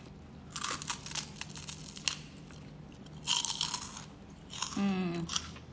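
Someone biting and chewing a crunchy snack: crisp crunches come in several short bursts, and a brief voiced sound follows a little before the end.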